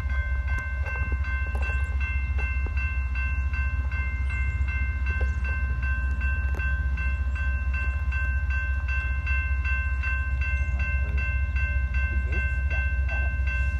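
Distant approaching diesel freight train, a steady low rumble, under a bell ringing quickly and evenly at about three strokes a second.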